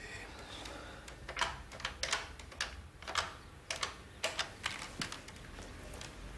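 Buttons of a wall-mounted push-button telephone being pressed to dial a number: about ten short, sharp clicks in quick, uneven succession.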